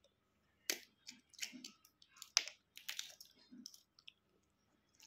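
Fingers cracking and peeling the shell of a boiled balut duck egg: a run of small, irregular crackles and clicks, with soft chewing between them.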